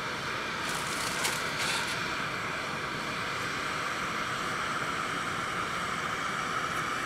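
Steady hiss of a portable gas camp stove burning under a pot of water, with a few short clicks of knife and pot handling about one to two seconds in.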